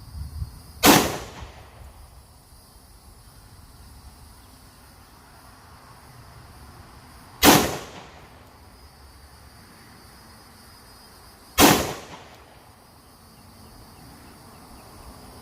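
Three single rifle shots from a Palmetto State Armory AR-15 with a Strike Industries J-Comp muzzle compensator, fired slowly several seconds apart. Each is a sharp crack that dies away over about half a second.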